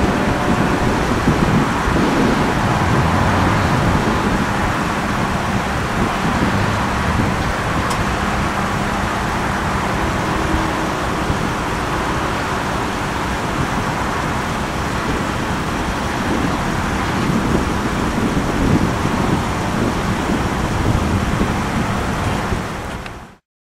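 Norfolk Southern train rolling past: a steady, loud rumble and rail noise that cuts off abruptly near the end.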